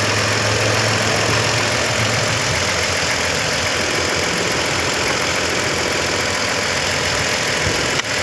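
Toyota Avalon engine running steadily, with a brief dip in the sound near the end.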